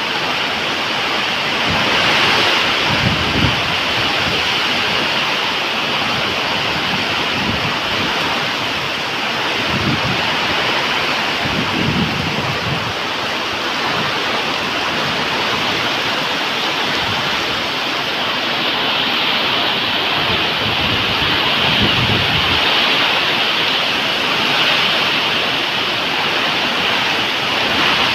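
Waterfall: water pouring and splashing with a steady, even rush.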